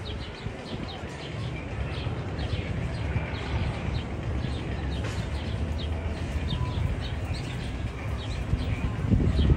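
Bird sound effect from the Magnum XL-200's tunnel soundtrack: many short, high chirps repeating rapidly over a steady low rumble, with a louder low swell near the end.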